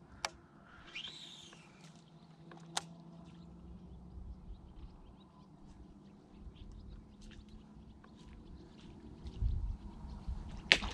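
Quiet reedy-pond ambience with a faint call about a second in, light scattered ticks, and two sharp clicks in the first three seconds. Near the end a sudden sharp crack, the start of a bass striking the topwater frog lure.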